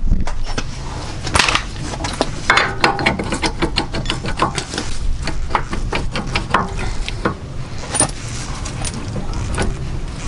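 Metal hand tools and hardware clinking and knocking irregularly, many sharp clicks in quick succession, during work on a car's shock and coilover assembly, over a steady low rumble.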